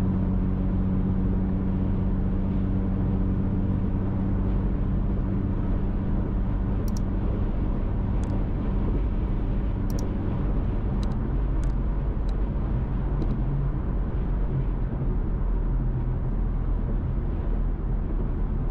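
Inside the cabin of a 2015 Chevrolet Camaro V6 cruising at highway speed: a steady low engine drone over tyre and road noise. A few light clicks come through in the middle.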